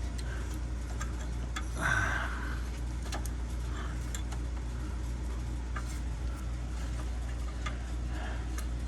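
Scattered small plastic clicks and rattles of hands handling an O2 sensor's wiring pigtail and connector, with a brief rustle about two seconds in, over a steady low hum.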